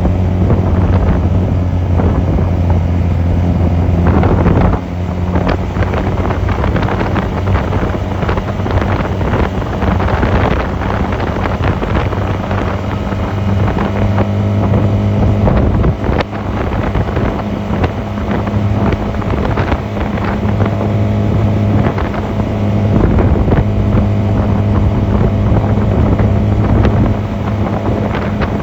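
Honda 250cc motorcycle engine running steadily on the road, with wind noise on the microphone. The engine note dips briefly about five seconds in and again about sixteen seconds in.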